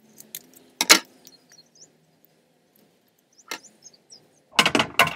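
Scissors snipping paper: one sharp snip about a second in and another about halfway, then a quick cluster of clicks and rustles near the end as the paper is handled.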